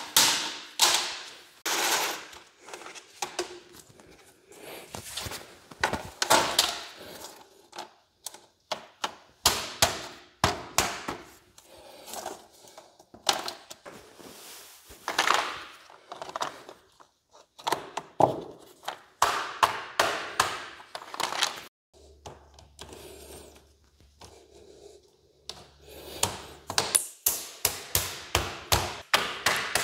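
Swisstrax interlocking plastic garage floor tiles being dropped into place and snapped together, making an irregular run of many sharp snaps, clicks and knocks.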